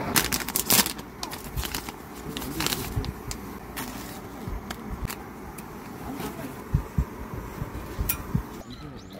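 Irregular sharp clicks and a few light knocks over a steady low background hiss, as of small objects being handled.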